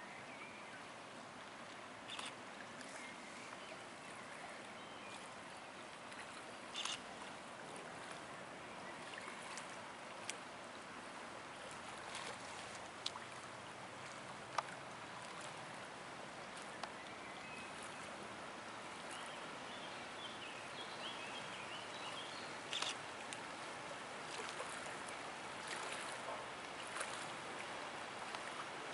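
Faint, steady rushing hiss of river water beside a passing inland cargo ship, growing slightly louder as it goes, with no clear engine note. Scattered small sharp clicks, and a few faint high chirps about two-thirds of the way through.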